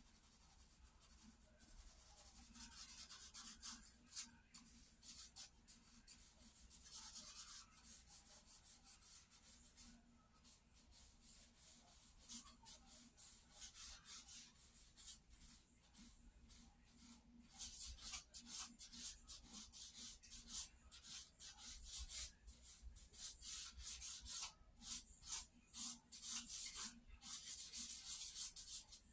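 Charcoal scratching across sketchbook paper in quick, repeated strokes, coming in bursts and busiest over the second half.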